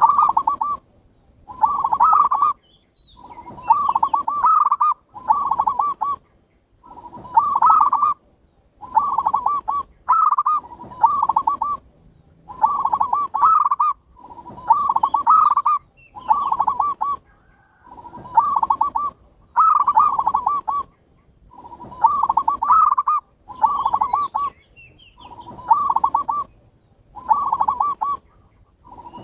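Zebra dove (perkutut) song, Bangkok and local type: a long run of short rolling coo phrases at much the same pitch, about one a second with brief gaps between. It is a lure recording played to get a caged perkutut singing.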